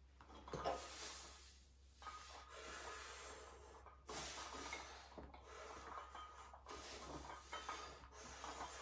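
Faint, hissy breaths roughly every one and a half seconds from a lifter straining through a set of barbell lying triceps extensions, over a low steady hum.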